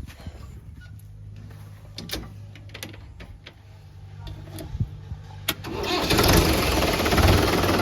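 A diesel engine runs low and steady with a few sharp clicks. About five and a half seconds in there is a sharp click, and the engine becomes much louder and keeps running hard.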